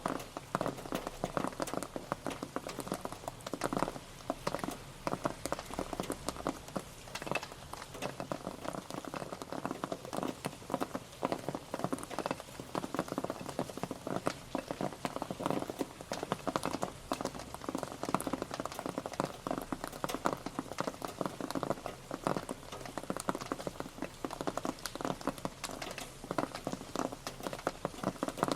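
Rain pattering on a surface: a dense, irregular patter of many drops, steady throughout.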